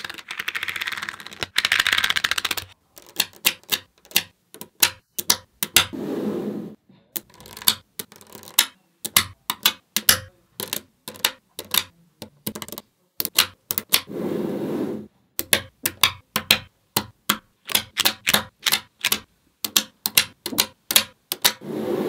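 Small magnetic balls snapping together in sharp, irregular clicks, at times several a second, as clusters of balls are pressed onto a slab built of them. Stretches of dense rattling, a little under a second to about three seconds long, come as the mass of balls is pushed and shifted; the longest is at the start.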